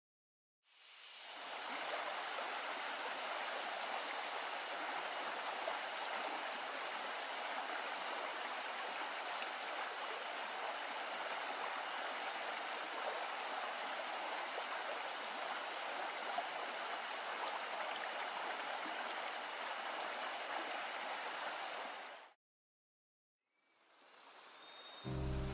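Steady rushing of a river's running water, fading in about a second in and cutting off suddenly near the end.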